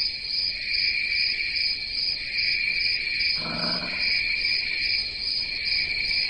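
A steady night chorus of crickets trilling at a high pitch. A faint, low, short call is heard about three and a half seconds in.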